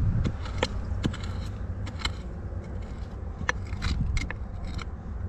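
Hand mattock digging in dry, stony soil: scraping through the dirt, with scattered short sharp clicks as it strikes.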